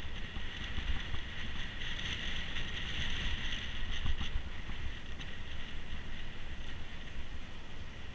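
Wind buffeting the microphone and a rough low rumble from a mountain bike riding off road. A steady high-pitched buzz swells up and is loudest in the middle, then fades back.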